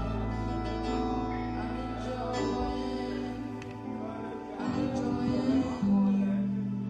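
Music with sustained, held notes that change pitch every second or two, plus a light plucked-string sound.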